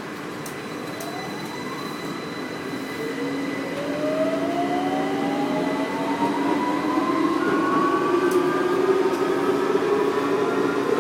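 A train, probably an electric subway train, picking up speed: its motor whine rises steadily in pitch and grows louder.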